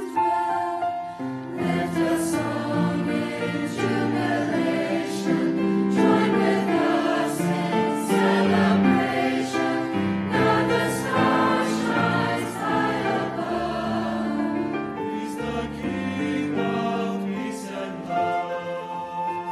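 Mixed youth choir singing a Christmas carol in parts, with sustained chords. A flute comes in with a held note near the end.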